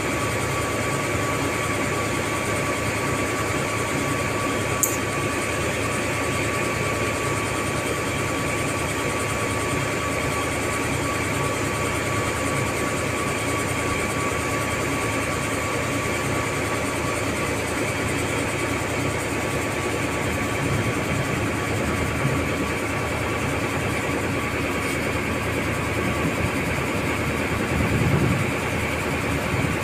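Steady low drone of a large ship's engines, with a thin steady whine that fades out a little past halfway.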